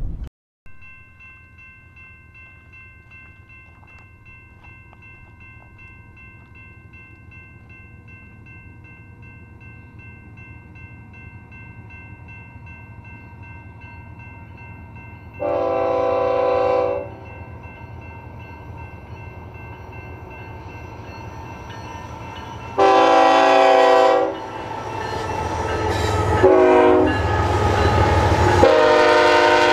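Diesel freight locomotive's air horn sounding the grade-crossing signal: two long blasts, a short one, then a long one, as the train approaches the crossing. The engine's low rumble grows louder under the last blasts, and a faint steady high tone runs through the first two thirds.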